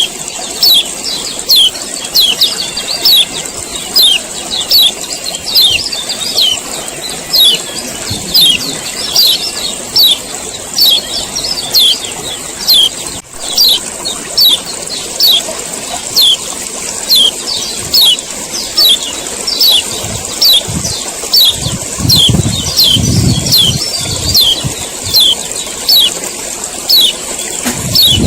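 Male kecial kuning (a Lombok white-eye) giving its 'ciak ciak' call over and over: sharp, high, falling chirps, about two a second. A steady high hiss runs underneath, and low rumbling comes in about three quarters of the way through.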